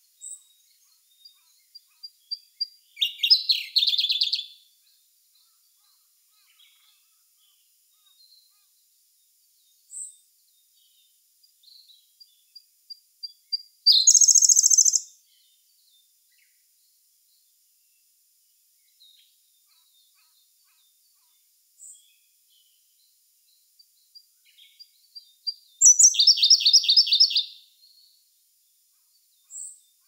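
Siberian blue robin singing: three songs about twelve seconds apart, each a run of quiet, quickening high ticks leading into a loud, rapid trilled phrase. The second phrase is pitched higher than the other two.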